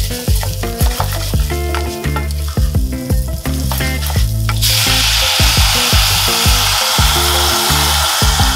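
Loud sizzling that starts suddenly about halfway through as white wine is poured into a hot saucepan of toasted arborio rice and stirred with a wooden spatula, over background music.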